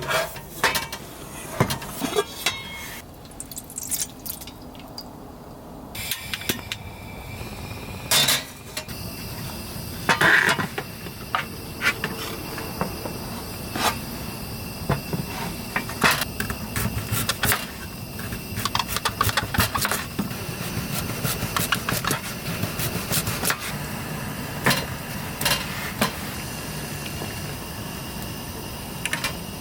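Scattered sharp clicks and knocks, with a steady hiss that begins about six seconds in.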